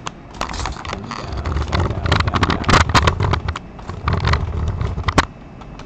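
Handling noise from a camera being moved about: irregular knocks, clicks and rubbing with a low rumble, loudest around the middle.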